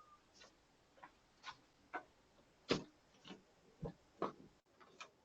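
Faint, irregular clicks and taps, roughly two a second, picked up by a doorbell camera's microphone; the loudest comes about two and a half seconds in.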